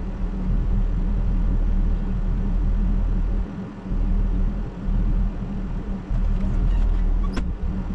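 Engine running steadily with a low, even hum, a few short clicks near the end.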